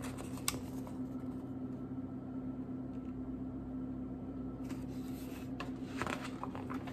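A steady low electrical hum of room noise. About five seconds in come a few soft rustles and clicks of a large hardcover picture book being handled.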